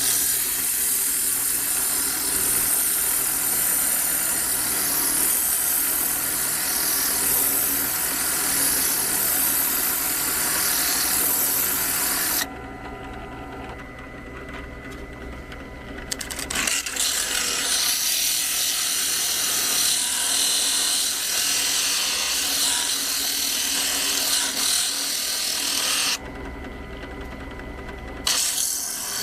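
Drill press spinning a 50-grit diamond polishing pad against a piece of amazonite, making a loud, steady grinding hiss over the motor's run. Twice the grinding stops for a few seconds while the motor keeps spinning, about 12 seconds in and again near the end.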